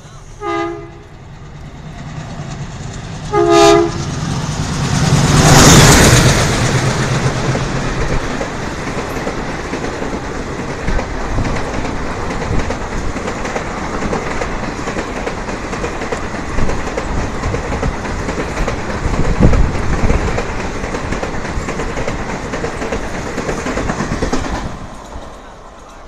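Two short train-horn blasts, then a WDP-3A diesel locomotive hauling an express runs through at speed, loudest as it passes about six seconds in. Its coaches follow with a steady rumble and clatter over the rail joints, fading away near the end as the train clears.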